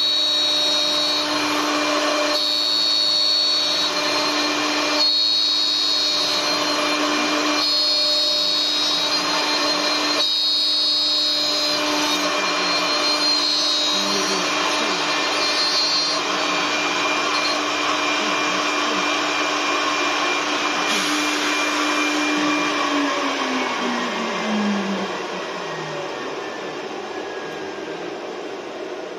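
CNC wood turning center milling spiral shapes into two turning wooden blanks with its electric spindle cutters. Over a steady motor hum, a higher hissing cutting sound comes and goes about every two and a half seconds at first. About three-quarters of the way through, the motor's tone slides down in pitch as the machine spins down, and the sound gets quieter.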